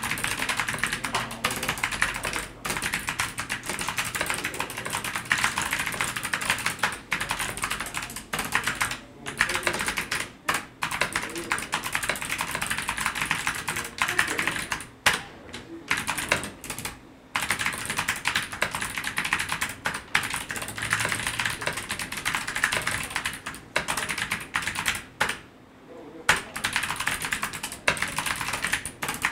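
Typing on an ABKO Hacker K8300 mechanical keyboard with Kailh clicky optical switches: a fast, continuous run of keystroke clicks, broken by a few brief pauses.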